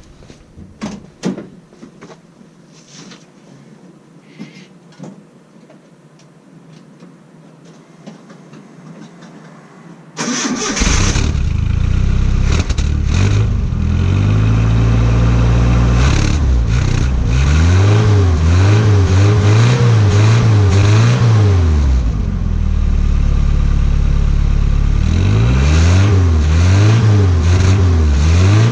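A 1986 Nissan 720 pickup's four-cylinder engine, on its stock exhaust with a catalytic converter, 2-inch pipe and restrictive muffler, starts suddenly after a few faint clicks and idles. Later come two runs of quick throttle blips, the pitch rising and falling several times. The exhaust is really quiet, with the motor heard louder than the exhaust.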